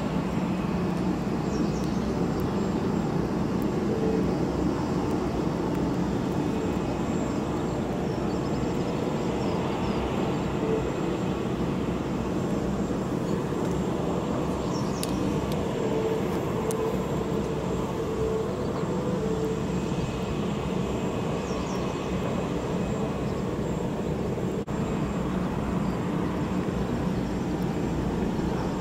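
Steady mechanical drone of airport apron noise, the running engines of aircraft and ground service equipment around a parked Boeing 747-8 freighter, with a low hum that holds level and does not change.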